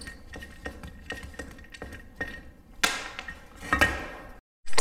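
Light metallic clicks and clinks of a serpentine belt tensioner assembly and its pulley being handled on a wooden workbench, with two louder clatters about three and four seconds in.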